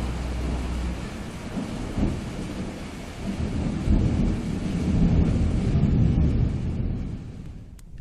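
Rumbling thunder over a steady hiss of rain, swelling and ebbing, then fading away near the end.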